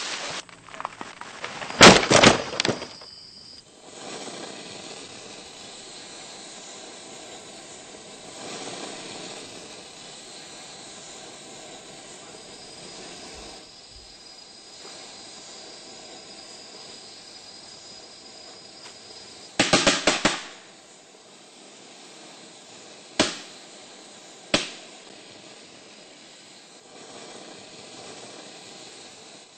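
Wood cracking as an axe-struck tree gives way and a branch comes crashing down: a rapid cluster of loud sharp cracks about two seconds in and another around twenty seconds, then two single sharp cracks, over a steady hiss.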